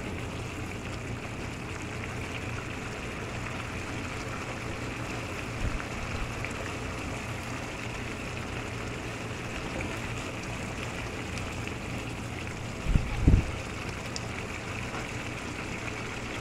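Meatballs in tomato sauce simmering in a pan, a steady bubbling. A brief low thump comes about a third of the way in, and a louder pair of thumps near the end.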